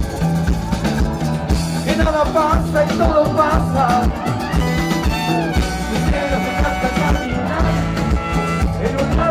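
Live band playing a song: drum kit, bass and guitars keeping a steady beat, with trumpet and trombone in the mix.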